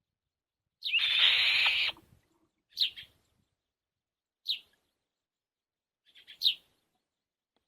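Small bird calling: a harsh, noisy call about a second in that lasts about a second, then three short high chirps sliding down in pitch, spaced a second or two apart.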